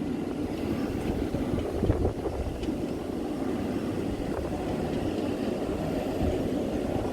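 Strong wind buffeting the microphone: a steady, low, gusty noise.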